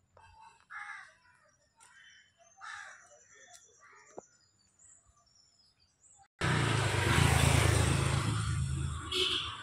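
Faint scattered bird calls, with a few harsh crow caws. About six seconds in, a loud steady rushing noise with a strong low rumble starts abruptly and takes over.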